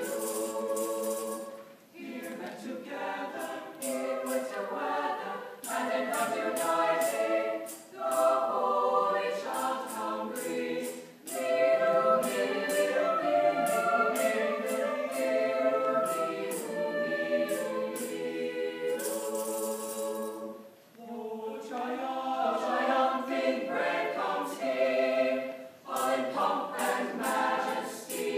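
Mixed-voice high school choir singing, phrase after phrase, with brief breaks between phrases.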